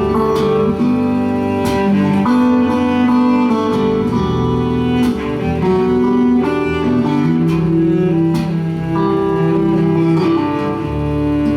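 Instrumental break in a live acoustic song: guitar playing, with a second instrument holding long low notes underneath.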